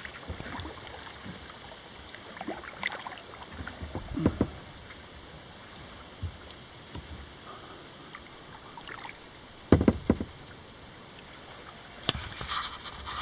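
Kayak paddling on a slow river: paddle strokes dipping and splashing, with occasional knocks of the paddle against the kayak over a faint steady rush of water. The loudest is a pair of knocks about ten seconds in.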